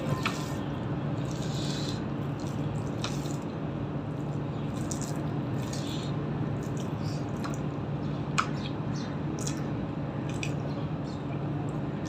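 Fingers mashing and mixing rice with curry on a steel plate: scattered soft wet squishes and short clicks, one sharper click about eight seconds in. A steady low hum runs underneath.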